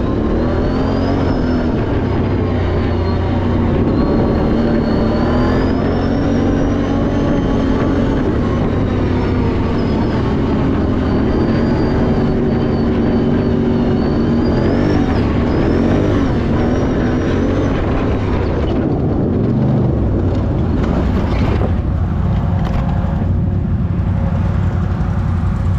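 A vehicle engine running under load, its pitch rising and falling with the throttle over a loud, steady rumble, with a high whine that rises and falls alongside it. Near the end the engine sound eases and settles to steadier tones.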